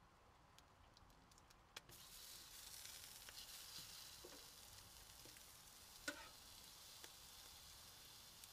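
Hot dogs sizzling on a hot flat-top steel griddle: a click about two seconds in as they go down, then a steady sizzle. A single sharp click about six seconds in, as a strip of bacon is laid on the griddle with the spatula.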